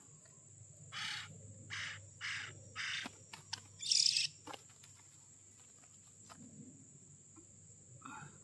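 Oriental magpie-robin (kacer) giving four short harsh rasping calls in quick succession, then a higher, sharper call about four seconds in and one more rasp near the end. A steady high insect drone runs underneath.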